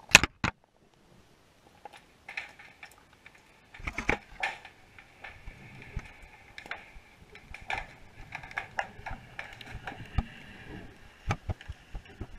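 Irregular muffled knocks and clicks picked up by a camera in its waterproof housing under the ice, opening with two sharp, loud clicks and then coming a few a second from about two seconds in over a faint hum.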